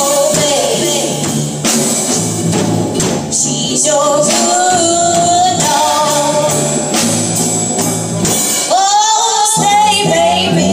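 Live band playing: a woman singing lead over electric guitars and drums with cymbal strokes. Near the end the bass and drums drop out for about a second while she holds a wavering note.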